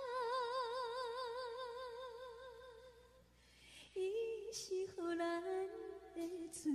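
Female voice singing a long held note with wide, even vibrato that fades out about three seconds in; after a short pause a lower, wordless sung phrase begins, with little accompaniment.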